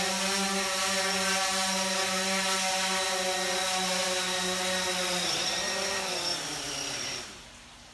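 DJI Phantom 4 Pro quadcopter's propellers running with a steady whine while it hovers low and sets down; about five seconds in the motors wind down, falling in pitch, and stop about seven seconds in as it lands.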